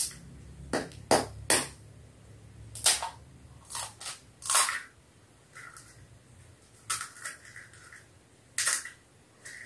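Crisp, hollow pani puri shells cracking as fingers press and break open their tops: a series of about a dozen short, sharp crackles at irregular intervals.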